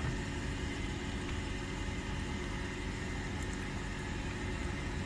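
Steady low background hum and rumble, with no distinct knocks or clicks standing out.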